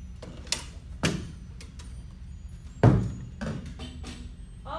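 Knocks and thuds as a pair of bongo drums on their stand is carried and set down, with a few lighter clicks; the loudest, deepest thud comes nearly three seconds in.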